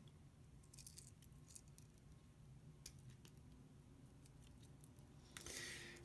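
Faint, scattered clicks of a Victorinox Explorer Swiss Army knife's stainless steel tools being unfolded on their pivots; the joints are new and still a little stiff.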